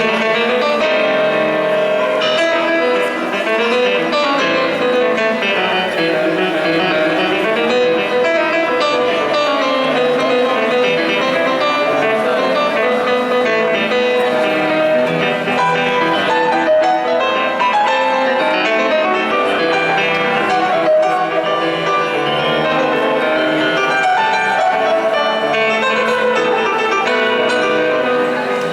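Live music from a concert soundcheck, with piano and guitar playing a continuous flowing melody.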